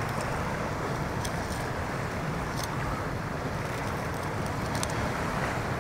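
Steady rush of ocean surf and wind, with a few faint light clicks from a fillet knife cutting through a fish on rock.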